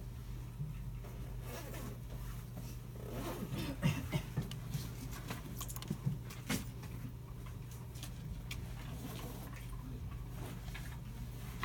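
Computer room ambience: a steady low hum of computers and ventilation, with scattered clicks and taps of mice and keyboards. The clicks are busiest a few seconds in.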